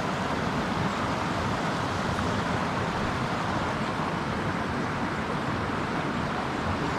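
Steady rushing of a mountain stream flowing over rocks, an even, unbroken noise.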